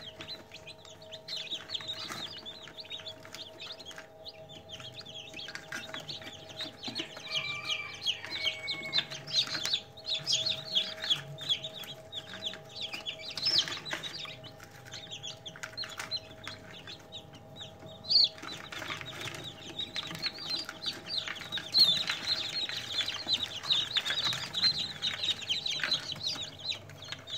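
Newly hatched chicks peeping in a crowd: a dense stream of short, high chirps that grows busier and louder about two-thirds of the way through, over a steady hum.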